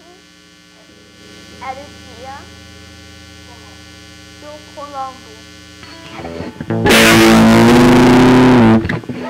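Electric guitar through a distorted amplifier: one loud chord struck about seven seconds in, held for about two seconds and then cut off sharply, over a steady amplifier hum.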